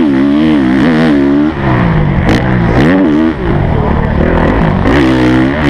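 Honda CRF single-cylinder four-stroke motocross bike engine at racing speed, its revs climbing and dropping again and again as the throttle is opened and shut through the gears, with short drops in level about a second and a half in and again past three seconds.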